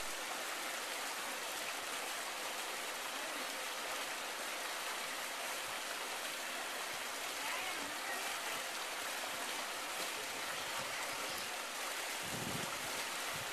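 Water running steadily down a rock-lined pool water slide, an even splashing hiss that holds constant.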